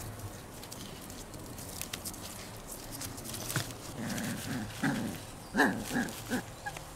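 A small dog growling in short bursts while it tugs at a jute cord, starting about four seconds in, the loudest growl a little after five and a half seconds. Before that, light rustling and clicks from the cord being handled.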